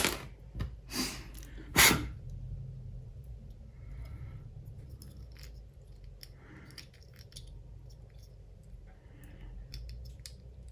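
Handling of a small plastic car mirror switch being taken apart and cleaned: a few sharp clicks and taps in the first two seconds, then faint light rubbing and scattered ticks over a low steady hum.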